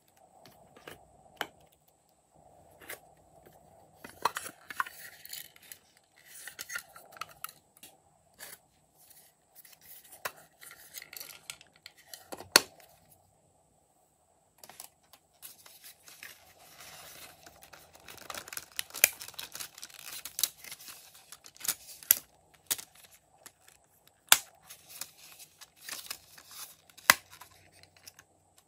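Close-up handling noises of thick slime and plastic: sticky slime sheets peeling and crackling, with scattered sharp clicks and taps of small plastic pieces and containers. A faint steady high whine runs underneath.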